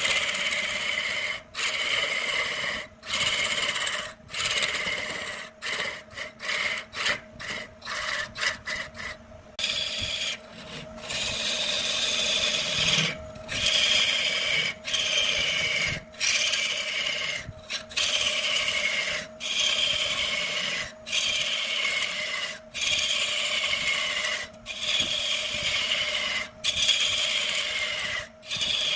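Lathe turning tool cutting into a spinning wood blank: repeated rasping cuts about every one and a half seconds, coming quicker for a few seconds in the first third, each cut with a pitch that slides down, over a steady hum from the lathe.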